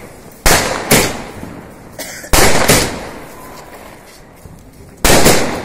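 A multi-shot box of stacked firework rockets firing, three loud sudden bangs about two seconds apart, each dying away over about a second.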